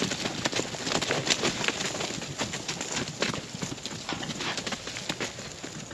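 Hoofbeats of a herd of steers trotting out through an open gate over dry dirt: a quick, irregular run of thuds and knocks that thins out near the end as the last animals pass.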